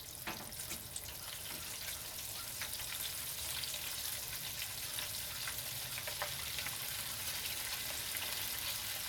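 Flour-coated chicken wings deep-frying in hot lard oil in a deep fryer: a steady sizzle with small scattered crackling pops, gradually getting louder over the first few seconds.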